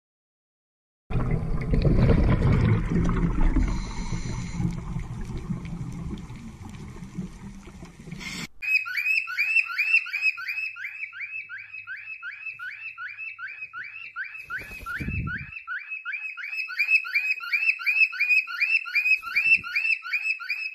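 After about a second of silence, a chainsaw runs loudly, cutting a sedated rhino's horn, and fades over several seconds. About eight seconds in, a cockatiel takes over with a fast, even string of short falling chirps, about four a second.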